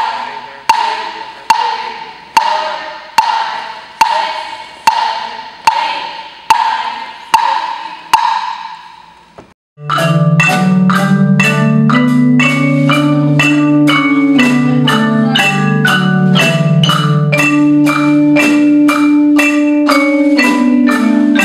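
Mallet percussion such as marimba playing. It first strikes a repeated pitched note about once every 0.8 seconds. After a short break about nine and a half seconds in, it plays a quick passage of many notes over long low notes.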